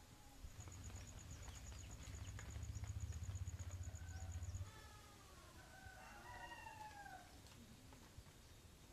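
A rooster crowing with chickens calling, faint, in a few falling calls in the second half. Before them a low rumbling hum with a faint high ticking runs for about four seconds and stops abruptly.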